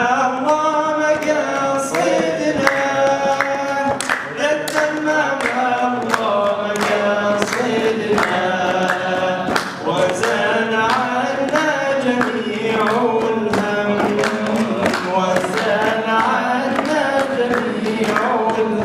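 A man singing an Iraqi mawwal unaccompanied into a microphone, one voice in long, gliding, ornamented lines. Many short sharp knocks sound over the singing throughout.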